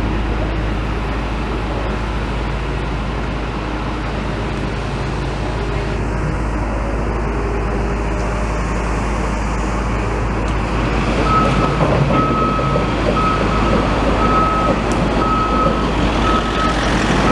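Steady street traffic noise. About two-thirds of the way in, a high electronic warning beep starts, repeating about one and a half times a second.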